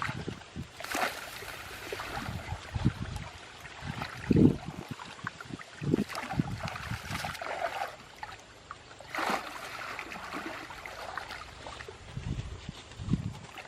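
Water splashing and trickling in irregular bursts, with scattered low thuds.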